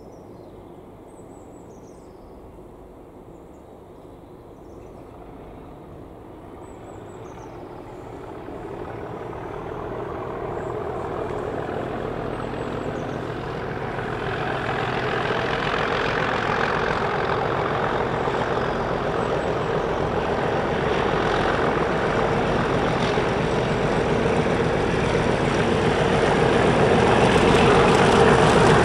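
British Rail Class 37 diesel-electric locomotive approaching, the growl of its English Electric V12 diesel growing steadily louder until it is close and loud near the end.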